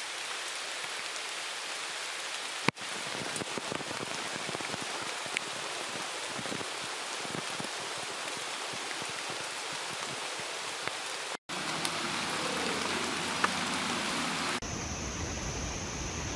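Steady rain hiss falling on forest foliage, with scattered drips and small ticks. Near the end it cuts to a different outdoor ambience carrying a steady high-pitched whine.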